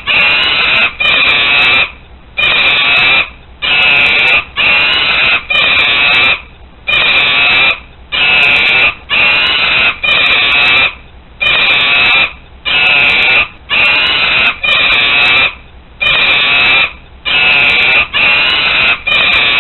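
Monkey screaming over and over: loud, high-pitched calls about a second long, close to one a second, each broken by a short pause.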